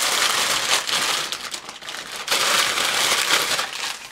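Plastic poly mailer bag crinkling and rustling as it is pulled open by hand, with the clear plastic bag of the garment inside rustling as it comes out. The crinkling comes in irregular loud surges and dies down just before the end.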